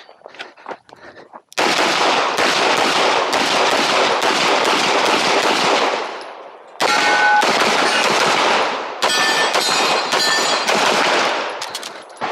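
CZ Shadow 2 pistol fired in rapid strings through a practical-shooting stage. A first run of shots starts about a second and a half in, there is a short pause about six seconds in, and then a second run follows. A few faint ringing tones sound among the later shots.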